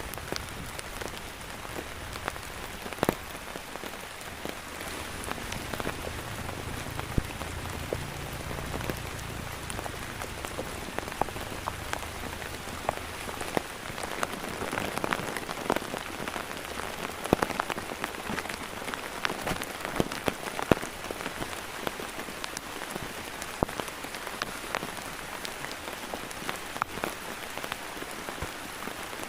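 Steady heavy rain, with many sharp individual drop impacts on a surface. A low rumble sits underneath for roughly the first dozen seconds.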